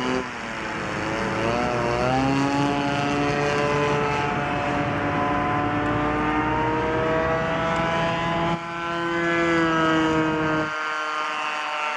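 30cc DLE single-cylinder two-stroke petrol engine of a Yak-54 radio-controlled model plane running in flight, its propeller note rising in pitch over the first couple of seconds, holding, then slowly falling near the end.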